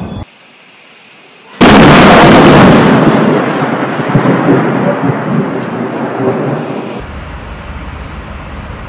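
A sudden, loud thunderclap from a close lightning strike about a second and a half in, rumbling and slowly fading over the next few seconds.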